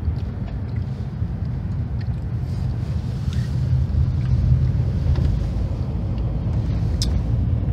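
Car cabin noise while driving: a steady low rumble of engine and tyres.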